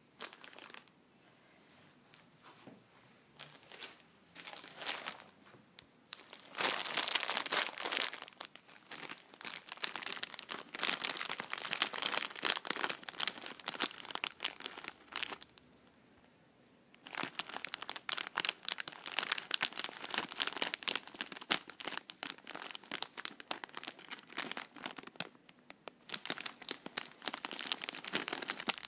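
Hands crinkling and scrunching a shiny Butterkist toffee popcorn bag in long, dense bouts of crackling, with a short pause a little past halfway. Before that, for the first few seconds, only faint, sparse rustling.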